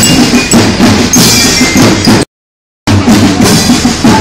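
Marching percussion band playing, with bass drum and snare strokes in a steady rhythm. The sound cuts out completely for about half a second a little past halfway, then the drumming resumes.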